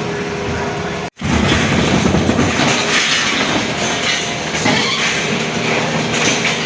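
Heavy machinery demolishing a concrete building: a steady engine with a dense, continuous rattle and crunch. The sound cuts out abruptly for a moment about a second in, then resumes.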